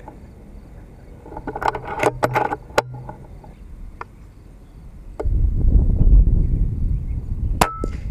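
An FX Impact M3 air rifle is handled and fired: a cluster of sharp clicks and knocks, then a low rumble about five seconds in, and one sharp shot near the end.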